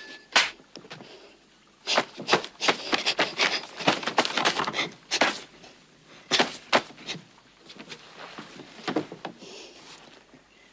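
Clothing rustling and breathing as two people embrace, in a run of short, close sounds between about two and seven seconds in, with a few more near the end.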